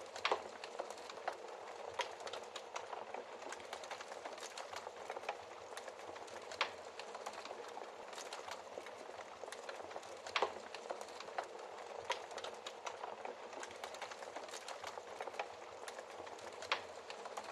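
Wood fire crackling in a fireplace: a steady soft hiss with many small crackles and an occasional louder pop every few seconds.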